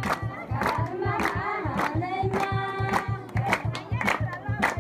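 A crowd singing a wedding song together, with hand-clapping in time at about two claps a second under a steady low beat; in the middle one voice holds a long note.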